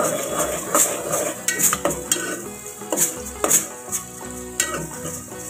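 A metal spoon scraping and clinking against the side and bottom of a metal pot while sliced onions are stirred in hot oil, in a series of quick irregular knocks.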